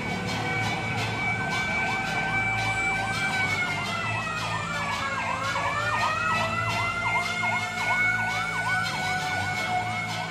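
Fire truck siren sounding a fast yelp, about three sweeps a second, over a steady high tone that dips in pitch midway and climbs back.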